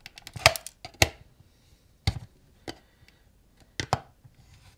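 Metal pry tool levering at the plastic case strip of an external hard-drive enclosure, working its clasps loose: about half a dozen sharp, irregular clicks and knocks of metal on plastic.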